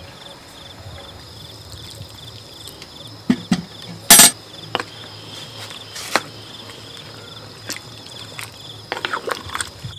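Crickets chirping in a steady high trill. Several sharp knocks and clatters of hard objects are heard over it; the loudest comes about four seconds in, and a quick cluster of knocks comes near the end.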